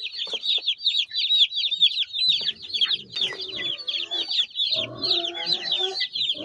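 A flock of newly arrived baby broiler chicks peeping nonstop in rapid, high chirps. From about two seconds in, lower squealing and grunting from pigs joins underneath.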